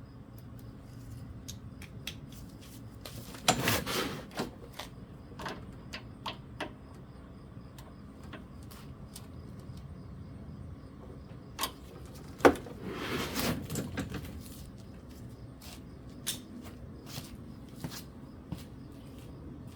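Scattered clicks and knocks of tools and small parts being handled on a workbench during a carburettor teardown, with two longer clattering stretches, about three seconds in and again about twelve seconds in.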